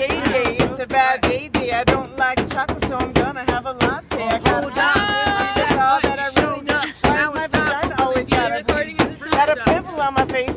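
Hands drumming on the metal body of an El Camino: a quick, uneven beat of slaps, about three or four a second. A voice vocalises over the beat and holds a sung note about five seconds in.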